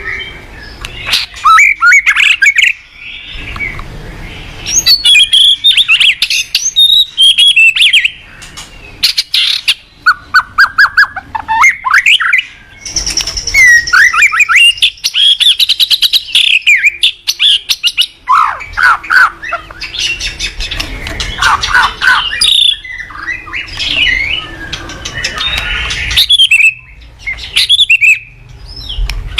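White-rumped shama (murai batu) singing energetically, in the active 'gacor' state: a long run of loud, varied phrases that mixes clear whistles, fast rattling trills and sharp clicking notes, broken by short pauses.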